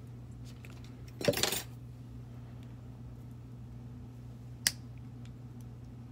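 A brief clatter of small hard objects being handled, a little over a second in, then a single sharp click a few seconds later, over a steady low hum.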